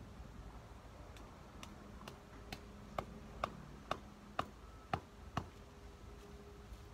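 Hand tool worked at the soil among garden plants: a run of about ten sharp clicks, roughly two a second, the strongest in the middle, ending about five and a half seconds in.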